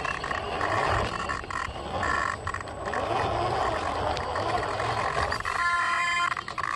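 Radio-controlled Axial SCX10 II scale crawler driving, its electric motor and gears whining. The whine comes and goes with the throttle over a rough, grinding noise.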